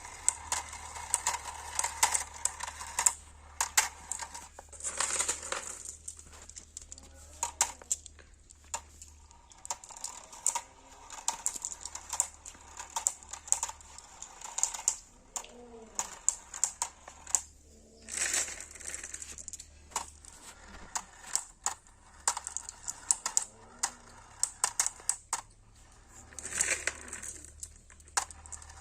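Marbles rolling and clacking down a marble run, many sharp irregular clicks with a few longer rattling stretches.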